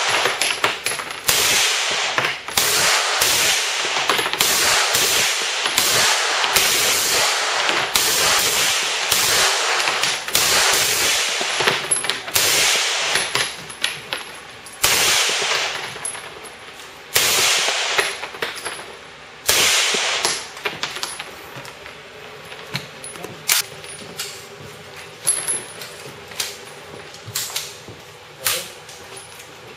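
Automatic rifle fire in short bursts of a few rounds each, with the bursts coming close together. In the last third the shots thin out to a few separate sharp reports.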